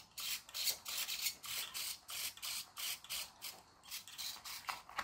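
Hard plastic toy car body and 3D-printed PLA chassis rubbing and scraping together as they are handled and pressed into place: a quiet run of short scratchy rubs, about three a second.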